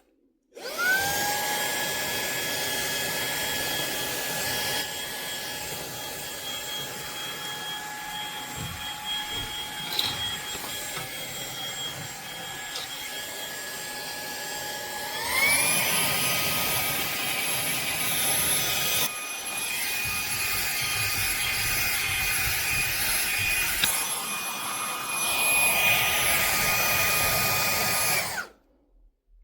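Fanttik V8 Apex cordless handheld vacuum running: the motor whine spins up about a second in and holds steady, then steps up to a higher pitch about halfway through as it is switched from its lower to its higher suction mode, and it shuts off just before the end.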